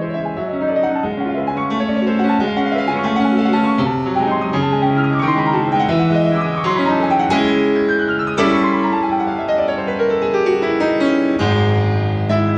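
Piano music playing, with several downward runs of notes through the middle and a new low bass note near the end.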